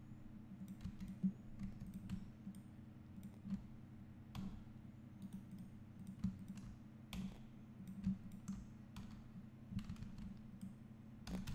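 Computer keyboard keys and mouse buttons clicking irregularly, a few clicks a second, as Blender editing shortcuts are worked, over a faint steady low hum.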